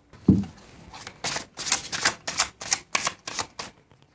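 Tarot cards being handled: a soft thud, then a quick run of crisp card clicks and flicks, about three to four a second.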